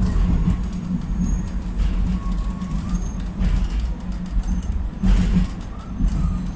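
Oldest-type Utrecht sneltram (light-rail car) running along the track, heard from inside the passenger saloon: a steady low rumble of wheels on rails under a constant low hum.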